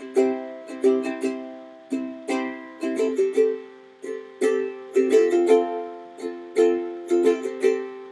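Acoustic music: a plucked string instrument picking chords, each note ringing and fading, with no singing.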